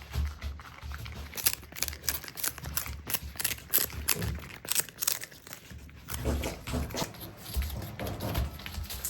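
Marmots chewing crunchy food: a quick, irregular run of crisp crunches and crackles, with dull low thuds between bites.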